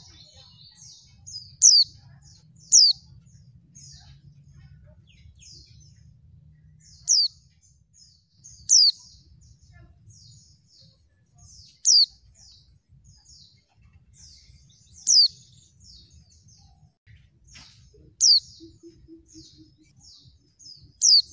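Female white-eye (pleci) giving sharp, downward-sweeping calls about eight times, one to three seconds apart, with soft twittering chirps in between. This call is used as a lure to get male white-eyes to answer and sing. A faint steady high whine runs underneath.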